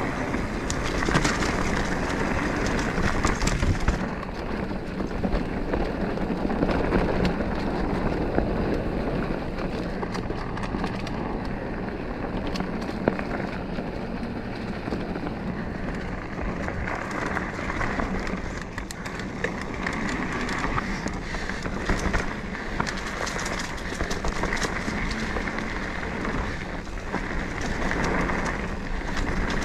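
Mountain bike ridden along a dirt singletrack trail: a steady rush of tyre and wind noise with frequent rattles and knocks from the bike over bumps.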